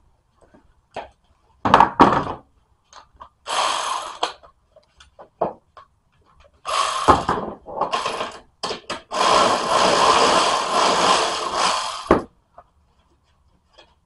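A power tool runs in several bursts, the longest about three seconds near the end, as the nuts on the upper strut mounts are spun off. Clicks and knocks of metal fall between the bursts.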